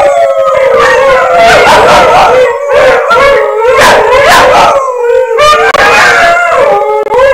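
Several dogs howling together in overlapping, wavering voices, with short yips mixed in: Alaskan Malamute howling that a small puppy is learning to join.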